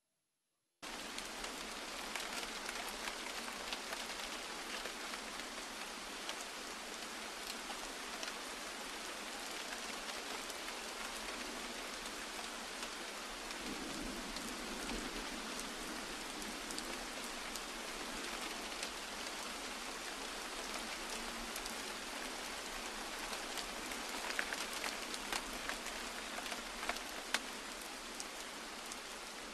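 Steady rain falling, with scattered patter of drops, starting about a second in after a brief silence.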